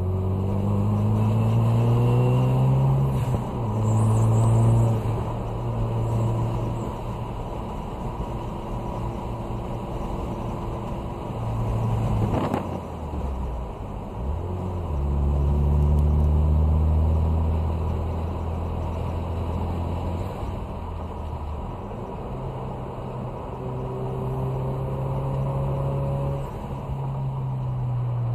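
Ford Focus RS's turbocharged 2.3-litre four-cylinder engine heard from inside the cabin while driven hard on a racetrack. It rises in pitch under acceleration at the start, then changes pitch between steady stretches as the car slows and speeds up through corners. There is a single sharp knock about twelve seconds in.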